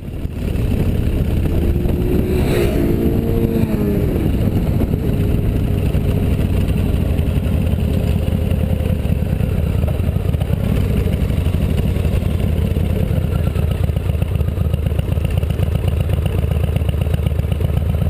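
Motorcycle engine running while riding, recorded from a camera mounted on the bike, under a heavy steady wind rumble on the microphone. About two and a half seconds in, the engine's pitch drops over about a second, with a brief click at its start.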